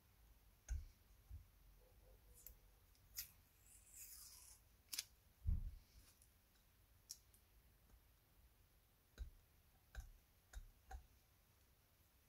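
Faint handling noises from a glass and transfer paper being worked by hand: scattered light clicks and taps, a brief rustle of paper, and one duller knock about five and a half seconds in.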